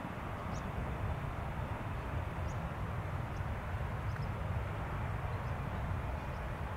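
Steady low rumble of distant vehicles outdoors, with faint short high chirps every second or so.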